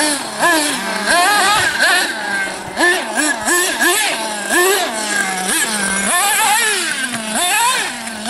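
Small nitro engine of a radio-controlled off-road buggy revving up and down under quick throttle blips, its pitch rising and falling about twice a second.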